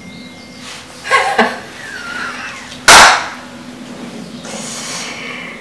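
A single sharp, very loud crack about three seconds in that dies away within half a second, with fainter brief sounds before it.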